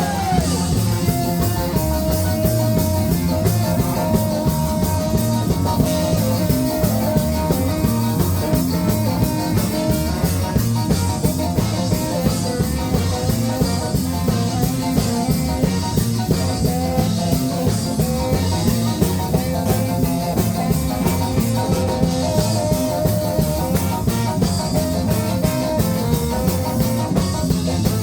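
Live ska band playing a song: drum kit, bass and guitar under a held melody line, going steadily without a break.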